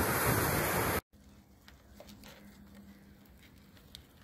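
Ocean surf breaking on rocks, with wind buffeting the microphone, cuts off suddenly about a second in. After it there is only faint background with a few small clicks and a low steady hum.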